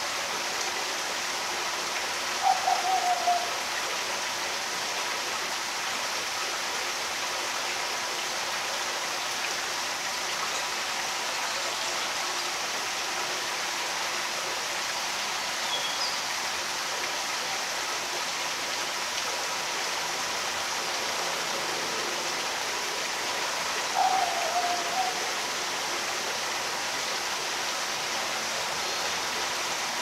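Steady rushing of running water, like a stream. A bird gives a short, slightly falling call twice, a few seconds in and again about six seconds before the end.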